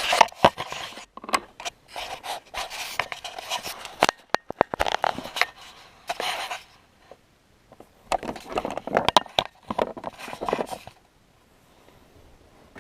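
Plastic scraping, rustling and sharp clicks as the wire harness connector is pushed down and worked loose from the back of a stock truck stereo, in two bouts of handling, then it goes quiet about two seconds before the end.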